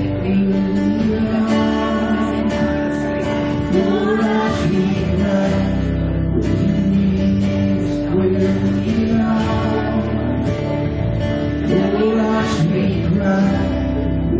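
Live worship music: acoustic guitar strummed with keyboard, and a voice singing over it in places.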